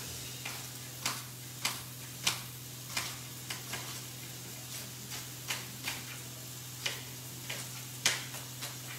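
Chef's knife dicing a red onion on a plastic chopping board: sharp, irregular taps of the blade on the board, roughly two a second, the loudest about eight seconds in, over a steady low hum.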